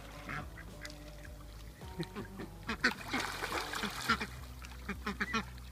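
Mallard ducks quacking, many short calls overlapping, busiest from about two seconds in.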